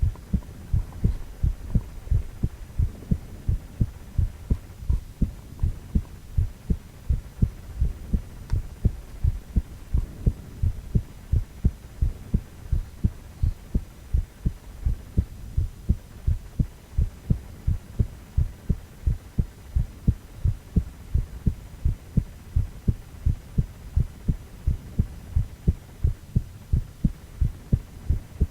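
An adult man's heartbeat: regular low thumps, about two a second, over a low hum.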